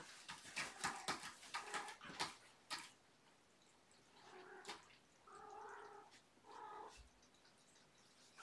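A kitten crunching dry kibble, with a run of sharp clicks over the first few seconds, then a cat meowing three times, drawn out and soft.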